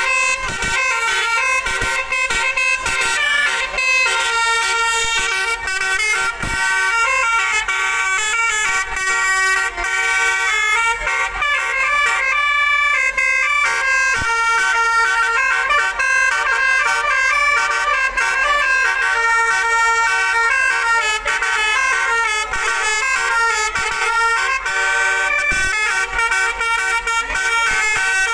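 A bus's Basuri multi-tone telolet air horn playing a fast melody, a continuous run of short notes jumping between pitches.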